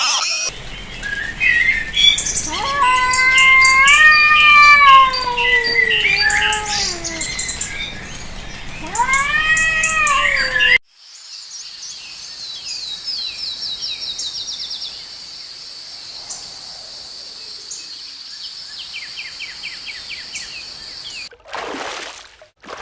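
Animal calls. First come two long, arching, wavering calls over high bird chirps; then, after a sudden cut, a steady high-pitched buzz with quick runs of chirping trills.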